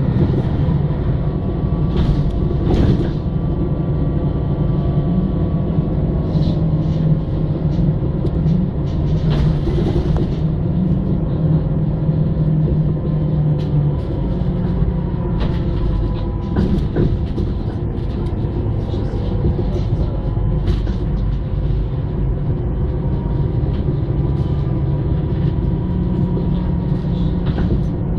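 Inside a moving city bus: the engine's steady low drone, with a faint whine and occasional knocks and rattles from the bodywork.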